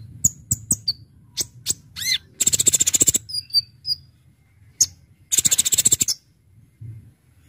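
Kolibri ninja, a sunbird, singing sharp, very high chips and two fast rattling trills, one a little over two seconds in and one about five and a half seconds in.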